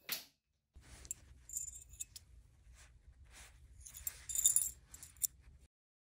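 Light metallic clinks and jingling from a small aluminium carabiner, bent open by a break test, and its loose wire gate being handled, over a faint low hum.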